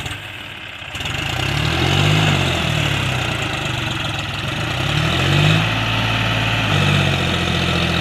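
John Deere 5050 tractor's diesel engine working under load as it pulls a loaded trailer through soft dirt. It gets louder about a second in, and its revs rise and fall a few times.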